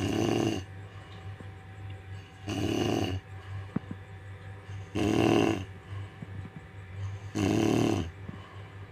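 A woman snoring in deep sleep: four loud snores, one about every two and a half seconds, each lasting about half a second.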